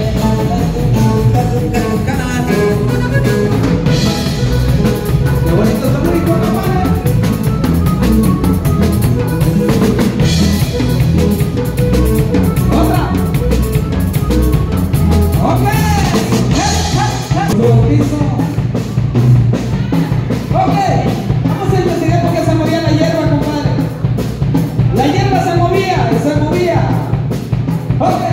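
Live band playing dance music through a PA: steady drums and bass, an accordion, and a voice singing.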